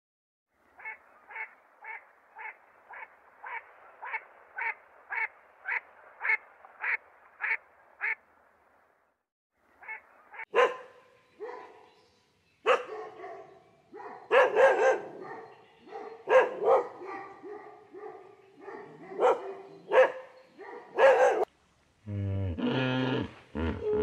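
Shiba Inu barking in loud, irregular single barks and short runs through the second half. Before that comes a steady run of about fourteen short, identical calls, about two a second. A different, lower sound starts near the end.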